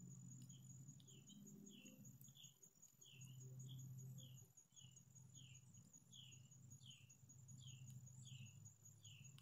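Faint outdoor wildlife sounds: an insect's steady, high, pulsing trill and a bird repeating a short falling chirp about twice a second, over a low hum.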